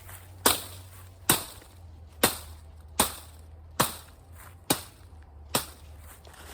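Machete chopping into wood: seven sharp blows, about one every 0.8 seconds.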